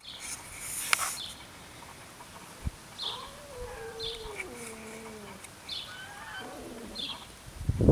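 Small birds chirping faintly, short high chirps about once a second, and a longer drawn-out call that falls in pitch a few seconds in.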